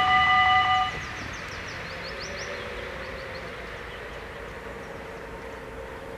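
Electric level-crossing warning bells ringing, cutting off suddenly about a second in once the train has cleared. Then the barrier booms rise, with a faint steady hum.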